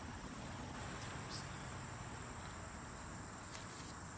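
Insects trilling steadily in one continuous high-pitched drone, over a faint low outdoor rumble.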